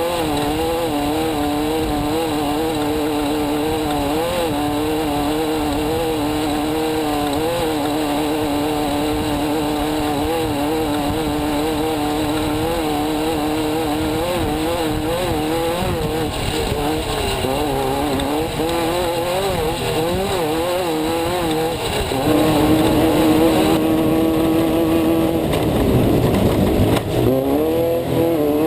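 Off-road race car's engine running hard, heard from inside the car, its pitch wavering quickly up and down. About 22 seconds in it gets louder and holds a steady note, then the revs drop away briefly and climb again near the end.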